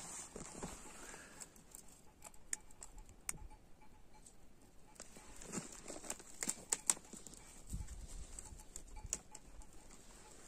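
Sheep moving about the flock: scattered light clicks and knocks, with a few soft low thumps about halfway through and again later.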